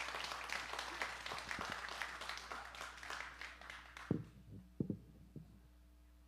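Congregation applauding, the clapping dying away about three and a half seconds in, followed by a few scattered knocks and thumps.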